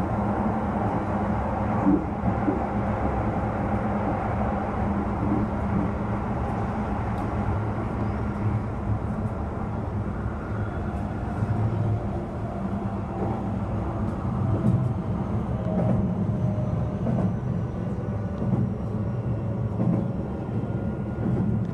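Running noise of a Keihan electric train heard from inside the car at speed: a steady low rumble of wheels on rail, with faint tones drifting in pitch and a few short knocks along the way.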